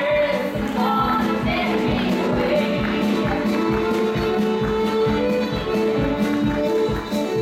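Live old-time string band music: a fiddle playing the melody over strummed acoustic guitar with a steady beat.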